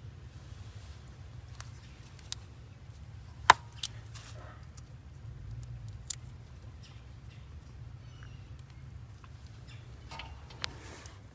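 Scattered small plastic clicks and handling noises from a TPMS tire-pressure sensor being worked by hand and fitted to a wheel's valve stem. One sharp click about three and a half seconds in is the loudest, over a steady low rumble.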